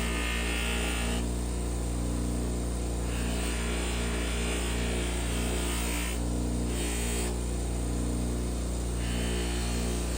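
Steady electrical hum with a buzz, unchanging in level, with a faint hiss above it.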